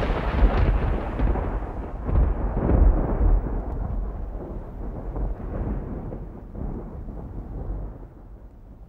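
Rolling thunder rumble with a deep low end, swelling a few times in the first three seconds and then fading away slowly.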